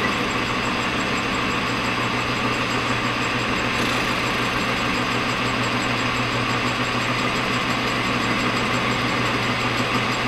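Metal lathe running steadily as the tool faces the band-sawn end of a stainless steel rod.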